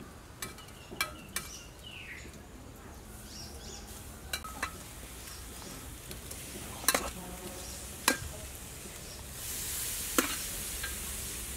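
Marinated beef ribs sizzling on a wire grill over charcoal, with metal tongs clicking sharply against the grate now and then. The sizzle grows louder near the end.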